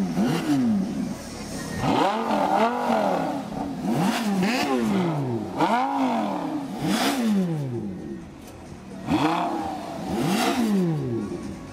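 A supercar engine being revved hard while standing, in a series of quick blips. Each one climbs sharply in pitch and falls back. There are about eight revs, with a brief lull about eight seconds in.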